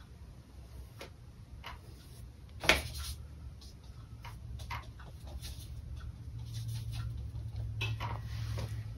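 Scattered light clicks and taps of painting tools being handled, with one sharper knock about three seconds in, over a low steady hum that grows a little louder toward the end.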